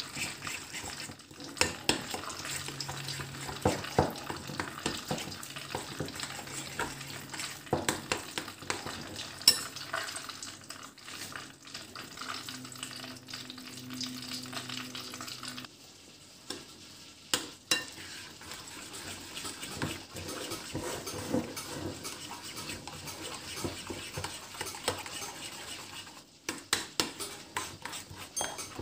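Metal spoon stirring a thick, wet dough in a porcelain bowl, with repeated scraping and clicking against the bowl's sides.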